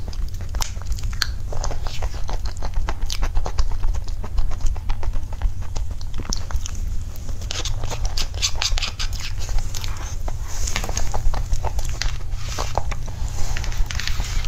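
Close-miked chewing and mouth sounds from eating soft green cake with cream, a dense run of small wet clicks and crackles that grows busier about halfway through, over a steady low hum.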